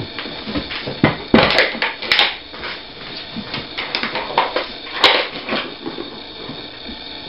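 Plastic blocks and pieces of a Nina Ottosson Dog Brick treat puzzle clattering and knocking irregularly as dogs work at it to get the treats out. There are louder knocks about a second and a half in, at two seconds and near five seconds.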